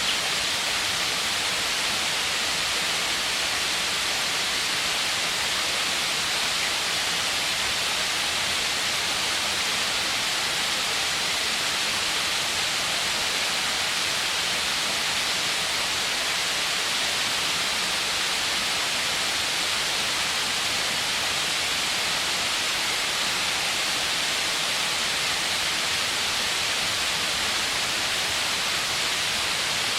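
Waterfall: a steady rush of falling water with no change or separate sounds.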